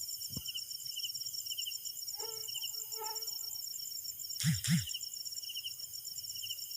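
Night insects, crickets, trilling steadily in rapid even pulses, several at different pitches. About four and a half seconds in, a short, louder double sound cuts across them.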